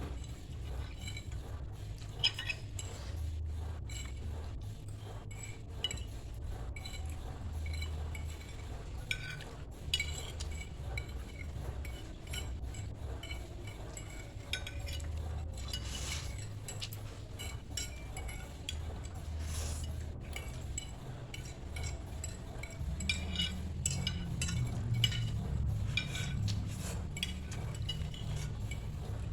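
Spoon and fork clinking and scraping against a bowl while a big portion of noodles is eaten, with many small irregular clicks.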